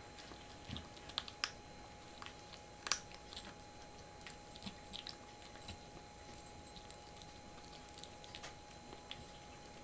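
Kitten chewing food: faint, irregular little crunches and clicks, the loudest about three seconds in.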